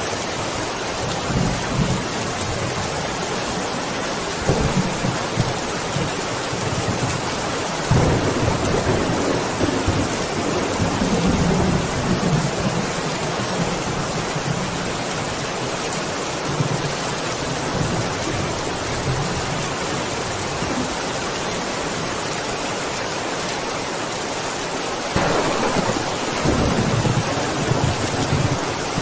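Steady heavy rain with thunder rumbling over it. Low rolls come through in the first few seconds, a bigger roll starts about eight seconds in and lasts several seconds, and another rises near the end.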